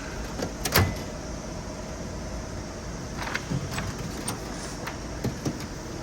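Tools handled in a mechanic's tool box: a few scattered metallic clicks and knocks, the loudest just before a second in, over steady background noise.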